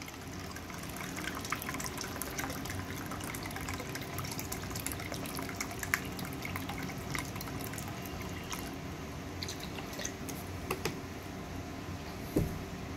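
Soy sauce being poured out, trickling and dripping, with a scatter of small drips and ticks throughout. A single short knock near the end.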